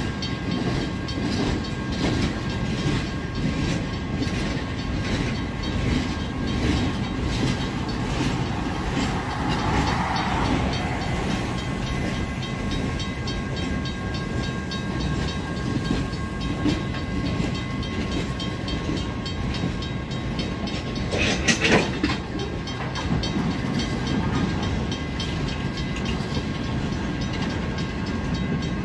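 Empty freight flatcars rolling past, their wheels clattering steadily over the rail joints. A sharp clank rings out about two-thirds of the way through.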